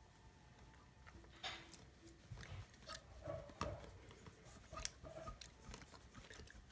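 Near silence with faint, scattered clicks and light rustles from handling a glue bottle over a bowl of slime mix.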